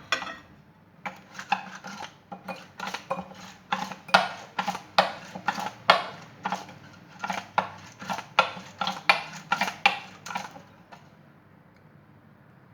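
Metal spoon knocking and clinking against a bowl over and over, about two to three knocks a second, stopping a couple of seconds before the end.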